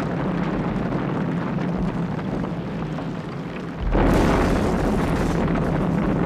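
Sound effect of a burning building caving in: a continuous rumbling roar, with a louder explosion about four seconds in.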